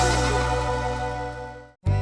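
Background music for a children's cartoon: a held chord that fades away, then a short silence and a new bouncy passage starting right at the end.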